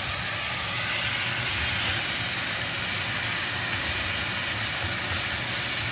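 Thinly sliced marinated beef sizzling steadily in a hot frying pan as it is stirred and turned over with a wooden spatula.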